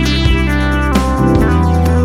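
Background music with plucked string notes, likely guitar, over a sustained bass.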